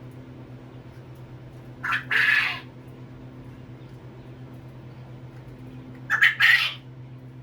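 Quail calling twice, each call a short note followed by a longer one, about four seconds apart, over a steady low hum.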